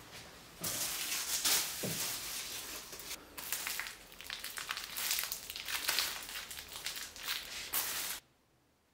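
Clear plastic wrapping crinkling and rustling as hands handle it and pull it off a folding wagon's metal pull handle, a dense crackle that stops suddenly near the end.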